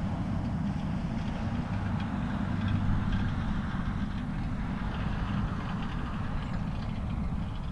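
Steady low rumble, with faint short chirps of backyard birds scattered above it.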